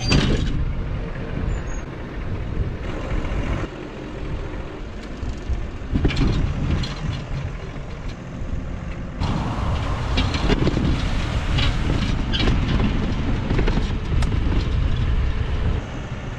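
Tractor-drawn crop sprayer travelling through a standing oilseed rape crop, heard from its boom: a steady rough rumble of wind on the microphone and the machine running, with crop brushing past. The hiss gets brighter about nine seconds in.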